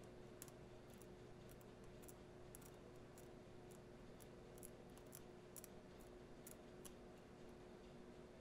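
Faint, irregular scratching ticks, about two a second, from a hobby blade scraping and peeling the copper ground layer of an iPhone 6 logic board, over a steady faint hum.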